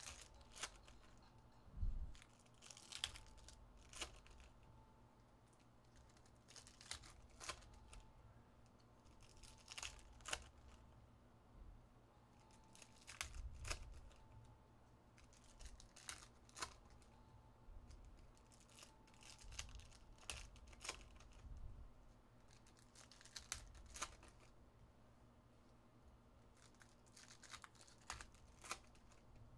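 Foil trading-card pack wrappers being torn open and crinkled by hand, in faint scattered bursts, with cards being handled between them.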